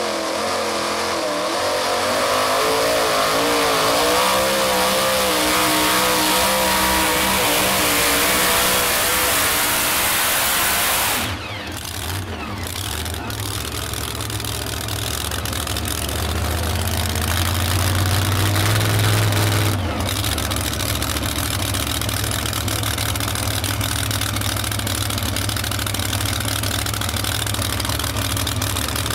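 Supercharged engine of a modified two-wheel-drive pulling truck running at full throttle with wavering, high revs as it drags the sled, then the throttle is cut suddenly about eleven seconds in. The engine then runs lower, rises again for a few seconds, drops back and keeps running at a low steady note.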